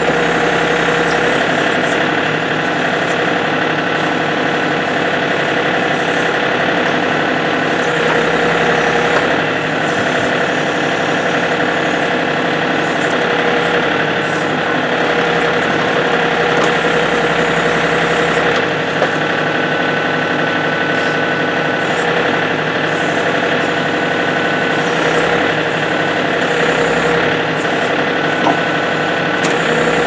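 John Deere compact tractor's diesel engine running steadily while the backhoe boom is worked through its hydraulic control levers.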